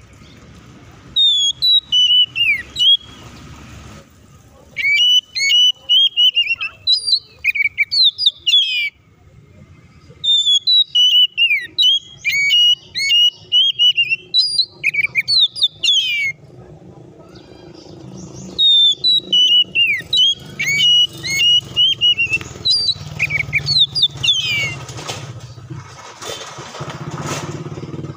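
Oriental magpie-robin singing in four loud runs of rapid, varied whistles and chattering notes, with pauses of a second or two between them. A low rumble of passing traffic runs underneath and grows louder in the second half.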